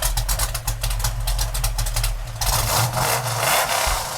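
American muscle car's V8 engine idling with a dense, rapid exhaust pulse and a steady low rumble, and a louder rush of noise in the middle range from about two and a half seconds in for just over a second.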